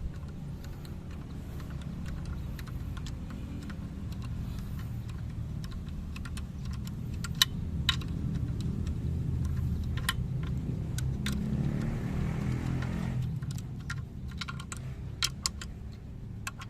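Hand tools clicking and clinking on metal as engine bolts are tightened by hand, in scattered sharp clicks with small clusters, over a steady low hum. A brief scraping hiss comes about three-quarters of the way through.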